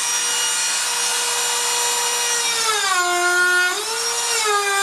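Dremel rotary tool running with a steady high whine over a grinding hiss as it carves teeth into the whistle; its pitch sags for about a second nearly three seconds in and briefly again near the end as the motor slows under the load of the bit biting in.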